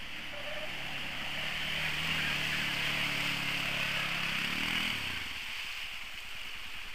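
Quad (ATV) engine running steadily under load as it churns through deep mud, rising briefly in pitch before its note drops out about five seconds in. A steady hiss runs underneath.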